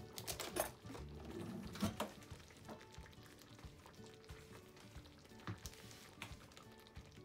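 Hamburger steak in thick sauce simmering in a donabe clay pot: scattered bubbles plop and pop at the surface, the loudest in the first two seconds, over soft background music.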